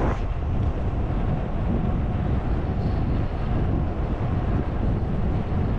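Steady wind noise on the microphone of a road cyclist riding at speed, a low rumble with a hiss above it.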